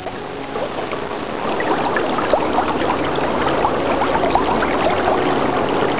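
Running stream water, a steady rush dotted with small bubbling notes, growing louder over the first couple of seconds and then holding steady.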